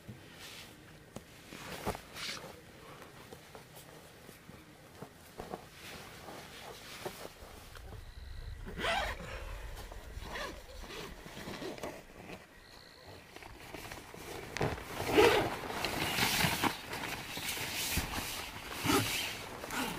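Light rustles and small knocks of tent handling, then from about two-thirds of the way in a nylon tent door zipper drawn in several rasping strokes, with the tent fabric rustling.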